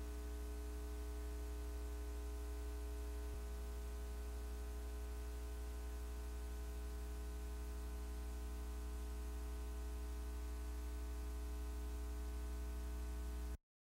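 Steady electrical mains hum with a stack of overtones over a hiss, with no game sound. There is a faint tick a little over three seconds in, and near the end it cuts off to dead silence.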